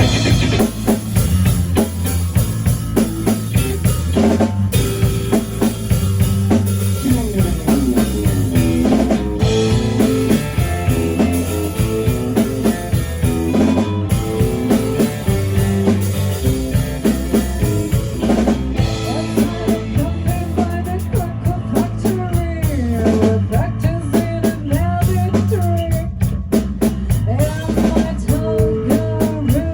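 Rock music played by a band on drum kit, bass and electric guitar, with a steady driving beat throughout.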